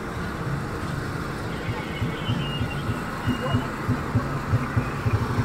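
Deep drumbeats thumping in an uneven beat, about two to three a second, growing stronger about three seconds in, over a steady hum of street and vehicle noise.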